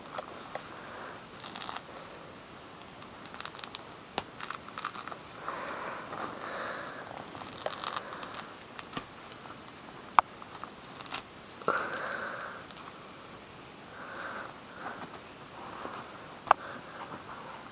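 Thick pummelo rind and pith being pulled and torn off the fruit by a hand in a rubber glove: irregular soft tearing and crunching with scattered sharp clicks.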